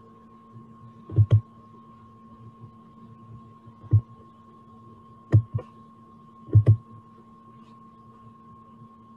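Steady electrical hum of two held tones, broken by sharp knocks: a quick pair about a second in, one near four seconds, and two more pairs around five and a half and six and a half seconds.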